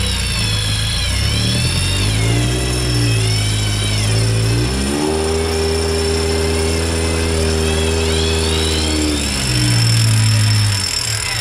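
Off-road 4x4's engine revving hard in mud: the revs jump up about halfway through, hold high for about four seconds, then drop back.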